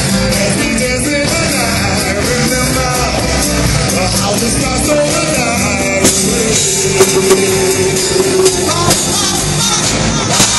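Live rock band playing with a string section of violins, vocals over the music; a few sharp drum hits stand out in the second half.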